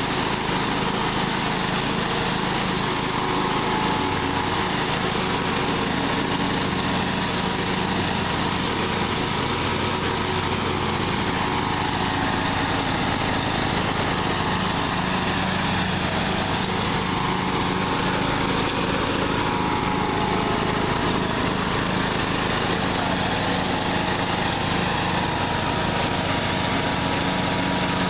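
John Deere LA115 riding mower's 19.5 hp Briggs & Stratton engine running steadily under throttle.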